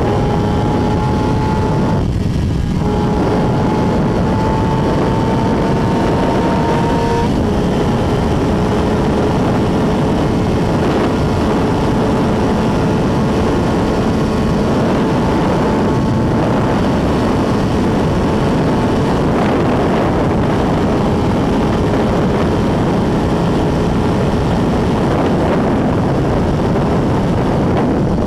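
Suzuki GSX-R600's inline-four engine running hard at motorway speed under heavy wind rush. Its tone climbs slowly, breaks off briefly about two seconds in, and eases down a little about seven seconds in before holding steady.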